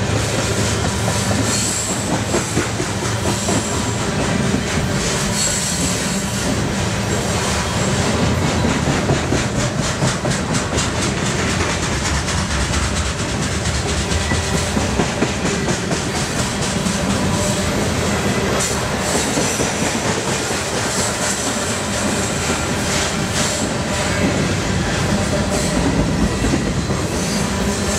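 Freight train of flatcars loaded with trash containers rolling past close by: a steady rumble of steel wheels on rail, with rapid clicks as the wheels cross rail joints.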